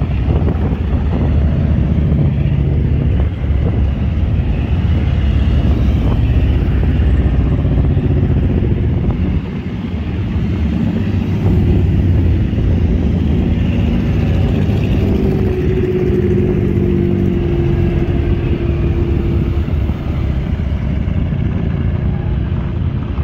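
A column of motorcycles and cars driving past, their engines rumbling steadily as bike after bike goes by. About two-thirds through, one engine's note stands out and falls slightly in pitch as it passes.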